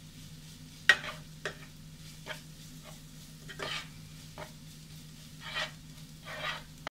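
Wooden spatula stirring and scraping a grated coconut, green chilli and garlic mixture around a non-stick frying pan, in irregular short strokes about once a second, the loudest about a second in, over a steady low hum.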